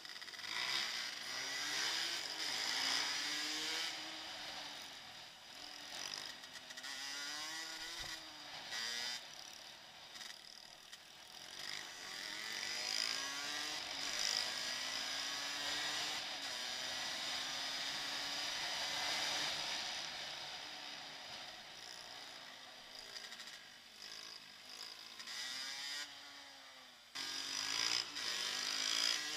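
Dirt-bike engine revving up and falling back again and again as the bike accelerates and slows, heard from a camera mounted on the bike, with a steady rushing hiss over it.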